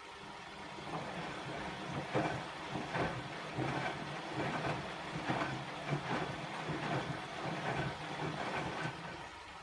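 Bosch WAE24162GB03 washing machine turning its drum in the rinse, water sloshing and the laundry thudding irregularly as it tumbles. It starts about a second in and stops near the end.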